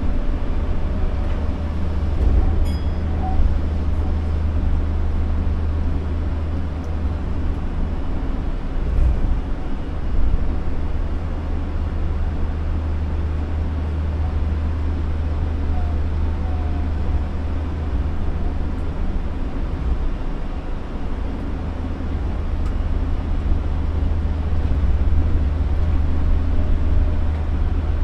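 Osaka Monorail train running along its concrete guideway beam on rubber tyres, heard from inside the front cab: a steady low rumble with a motor hum, growing a little louder near the end.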